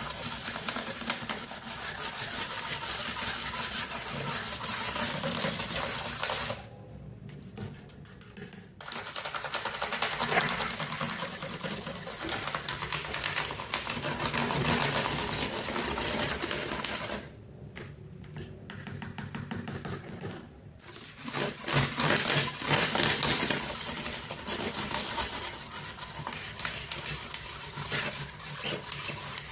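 Dense plastic clicking and clattering of keycaps being pried off a mechanical keyboard, broken twice by quieter stretches of a few seconds.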